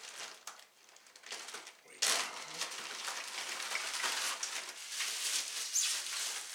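Plastic packing wrap crinkling and rustling as a beer bottle is unwrapped by hand; light scattered rustles at first, much louder and denser from about two seconds in.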